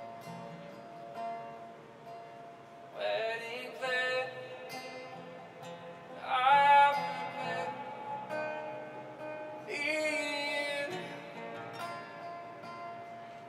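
Live worship music: an acoustic guitar playing a steady, soft accompaniment, with a few short sung vocal phrases over it.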